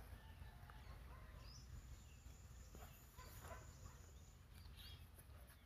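Near silence: faint background noise from the narrator's microphone, with a few faint, short high chirps.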